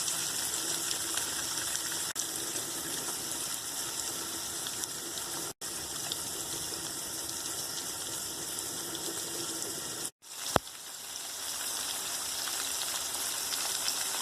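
Steady rush of flowing water. It cuts out briefly twice, with a sharp click about ten and a half seconds in.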